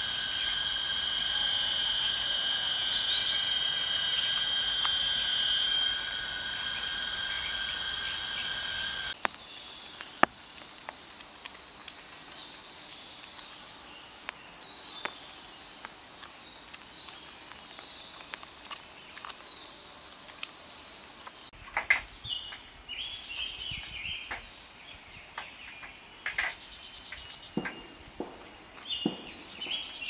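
Insects shrilling in steady high tones that cut off abruptly about nine seconds in. After that, birds chirp and call in quieter forest, with a run of short high notes near the end and a few light clicks.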